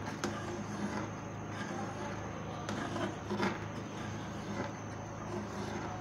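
Long metal ladle stirring thick gravy in a large metal pot, with a few light scrapes and taps of the ladle against the pot over a steady low hum.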